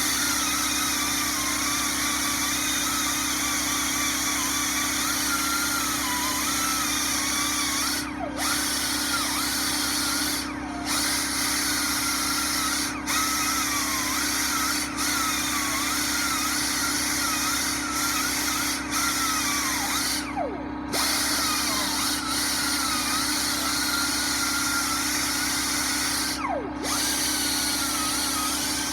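Power tool driving a wire brush, scouring paint off a cast-iron machinist's vise, with a whine that wavers as the brush is pressed and eased. About four times it briefly stops, the whine falling as the brush spins down before it starts again.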